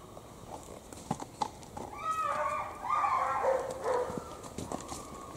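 Horse hooves clip-clopping in irregular knocks, with a loud voice-like call about two seconds in that lasts roughly two seconds.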